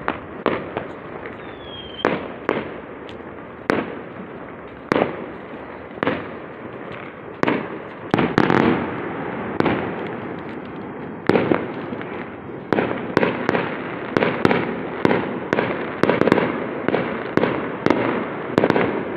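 Fireworks and firecrackers going off: sharp bangs at uneven intervals over a constant crackle, growing much thicker in the second half. One short falling whistle comes about two seconds in.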